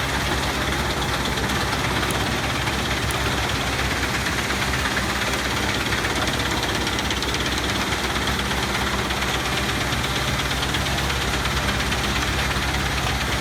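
Large wood chipper running steadily: a low engine drone with a constant rushing noise over it.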